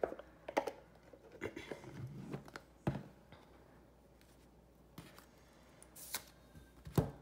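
A tarot deck and its rigid cardboard box being handled on a wooden table: light rustling with a few sharp taps and knocks as the box is set down and the cards are picked up. The loudest tap comes near the end.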